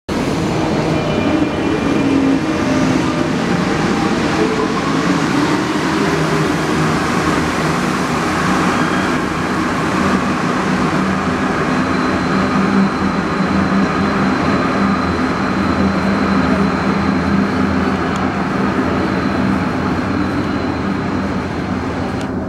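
Alstom NS-16 rubber-tyred metro train pulling away from the platform, a steady running noise with a low motor hum. A faint high whine joins about halfway through.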